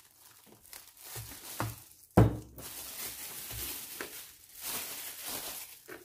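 Plastic wrapping crinkling and rustling as it is pulled off a small coffee maker, with a sharp knock about two seconds in.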